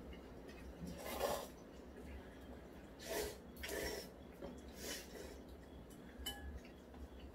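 People slurping cold bibim noodles in about four short slurps, with light clicks of chopsticks against ceramic bowls.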